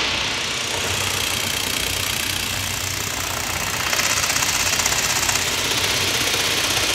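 Electronic music played live on a Buchla modular synthesizer: a dense, hissy noise texture with no clear melody, which takes on a fast, even pulsing about four seconds in.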